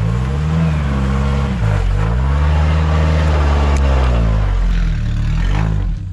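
A four-wheel drive's engine revving up and easing off about three times as it crawls over a rough dirt track.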